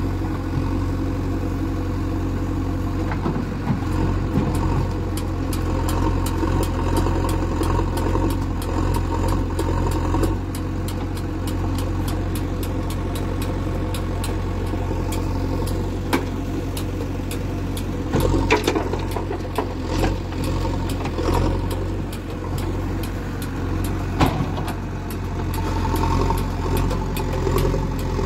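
JCB 3DX backhoe loader's four-cylinder diesel engine running steadily under working load, with a few sharp knocks as the backhoe bucket digs and dumps soil.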